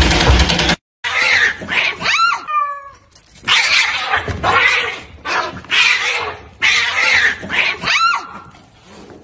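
Cats hissing and yowling in a scuffle: a series of short, sharp hisses, several rising into a wavering yowl. Under a second in, a louder noisy sound cuts off suddenly before the hissing starts.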